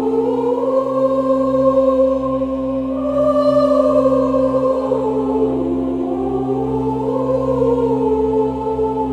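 A choir singing long, held notes that slowly rise and fall, over a steady low drone.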